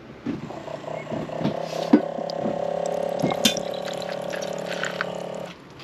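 The USB-powered pump in a Dometic water jug's tap whirs steadily as it pumps a drink into a tumbler, with the trickle of liquid and a few small clicks. The pump stops near the end.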